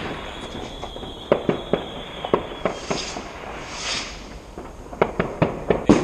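Fireworks going off: irregular sharp bangs and pops, coming thicker near the end, with a thin high whistle fading out about halfway through.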